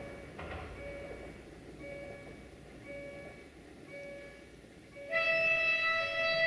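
A train horn sounds a loud, steady multi-note chord starting about five seconds in as the train approaches. Before and under it, a short warning ding repeats about once a second.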